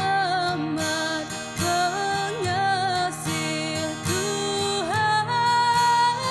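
A young woman singing a solo song over instrumental backing music, her voice moving through a melody with vibrato and holding one long high note near the end.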